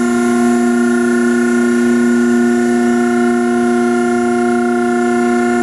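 Three-phase electric motor of a 15 HP baler humming steadily, a constant electrical hum with several overtones and no change in pitch or level.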